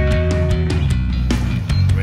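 Rock-style instrumental music with a steady bass line and repeated drum hits.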